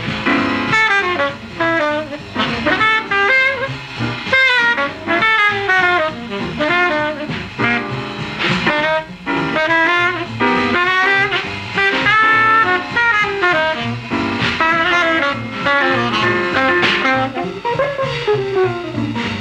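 Background music in a jazz style, a melody line moving over a steady bass.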